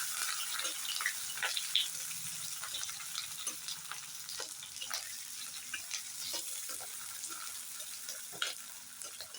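Onions sizzling as they fry in hot oil in a kadai, with scattered light taps of a spatula stirring them. The sizzle slowly gets quieter.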